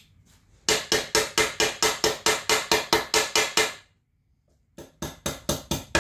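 Rapid, even hammering blows, about five a second, knocking leftover staples flat in a wooden easel frame. The hammering stops for about a second near the middle, then starts again.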